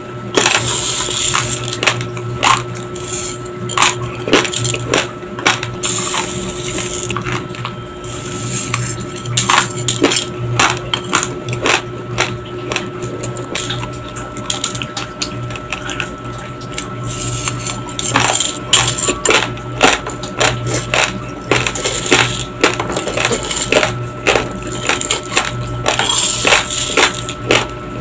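Raw long-grain basmati rice crunched between the teeth: a dense, irregular run of sharp crackling crunches, with dry grains clicking against a plastic scoop. A steady hum runs underneath.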